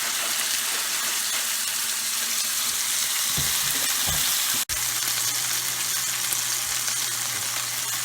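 Ribeye steaks searing in a skillet of hot oil, with a steady loud sizzle. There are a few low thuds a little before halfway, and the sound drops out for an instant just past halfway.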